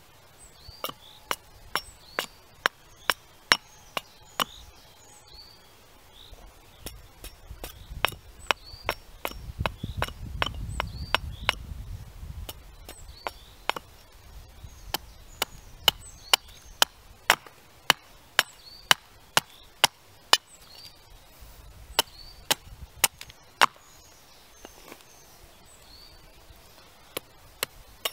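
Small carving axe chopping a wooden spoon blank held on a tree stump: sharp, crisp strikes at about two a second, in runs broken by short pauses. A low rumble comes in for a few seconds midway.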